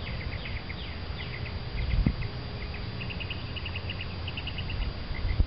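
Repeated high-pitched chirps and quick pulsed trills from wild creatures. Some chirps fall in pitch and some come in fast runs of about six a second. A steady low rumble runs underneath, and there is a single dull thump about two seconds in.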